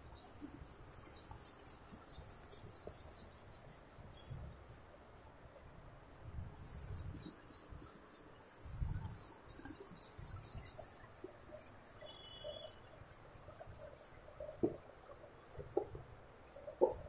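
Whiteboard duster rubbing across a whiteboard in quick back-and-forth strokes, a soft scrubbing hiss, with a few sharp knocks near the end.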